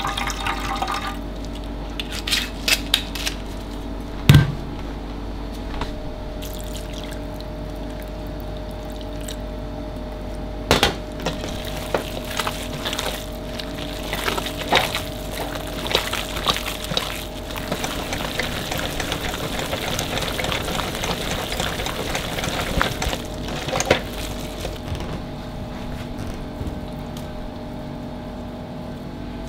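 Red wine poured briefly into a stainless steel tray, then a few clinks and a sharp knock about four seconds in. After that, gloved hands knead ground pork and chicken liver pâté mixture in a stainless steel bowl, making many short clicks over a steady background hum.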